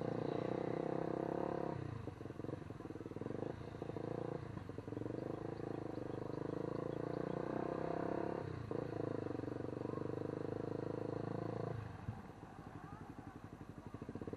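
An engine running steadily, easing off briefly a few times, then dropping to a slower, pulsing beat near the end.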